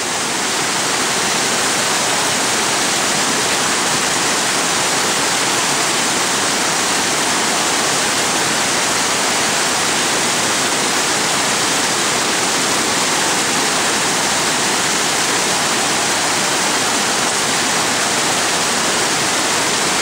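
Snowmelt creek cascading over logs and rocks: a loud, steady rush of whitewater.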